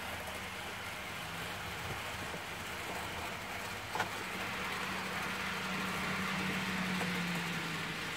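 N-scale model train running on the layout: a steady motor hum over the rolling hiss of wheels on track, growing louder in the second half as the train approaches, with one sharp click about four seconds in.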